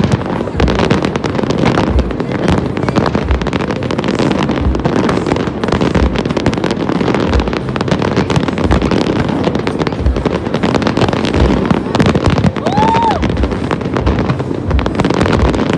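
Large aerial fireworks display: a dense, continuous crackle and bang of shells bursting, with deep thuds recurring at an even pace. A short whistle rises and falls about three-quarters of the way through.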